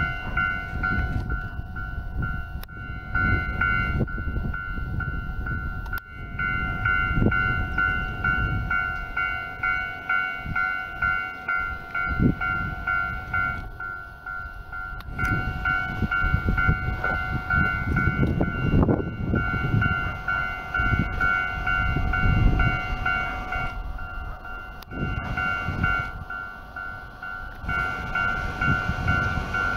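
JR Hokkaido 721 series electric train approaching the station, with uneven low rumbling and gusting throughout. A steady high ringing tone with overtones holds unchanged the whole time.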